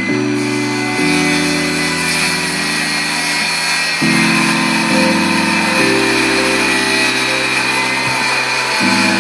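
Electric jigsaw running steadily as it cuts across the end of a wooden door, with background music under it.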